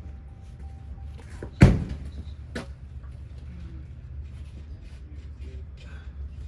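A single sharp knock from the bicycle's rear wheel and hand tools being worked on the axle nuts, about a second and a half in, then a lighter click about a second later, over a steady low rumble.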